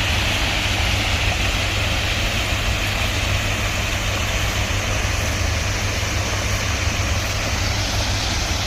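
Heavy engine of a railway track machine running steadily at a constant level, with a deep low rumble under an even mechanical noise.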